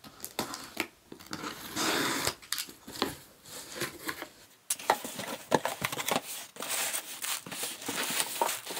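Packing tape on a cardboard box being cut open, the cardboard flaps pulled back with sharp clicks, then the paper packing inside rustling near the end.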